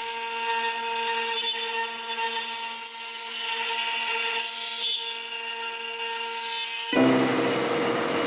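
CNC router spindle running with a steady whine as its end mill cuts the wooden inlay, over a hiss of chips being thrown. About seven seconds in it switches abruptly to a SuperMax drum sander running as the board is fed through.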